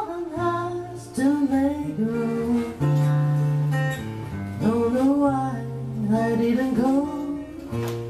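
A man singing to his own strummed acoustic guitar.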